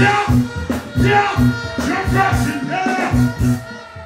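Live band playing dancehall reggae through a big stage sound system, with a steady bass beat and a man chanting lines into a microphone over it in short phrases.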